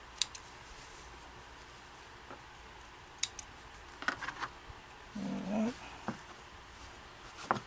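Small thread snips clipping sewing threads: a quick double snip at the start and another about three seconds in. Lighter handling clicks and rustle follow, with a brief low hum a little after five seconds.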